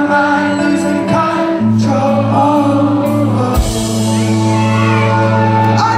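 Live rock band playing, with a male lead vocal over electric guitars, bass and drums. The band comes in fuller, with a crash, about three and a half seconds in.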